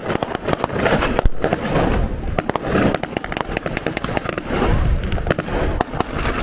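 Rapid, irregular cracking and popping of blank gunfire from a battle reenactment, many shots a second over a steady noisy background.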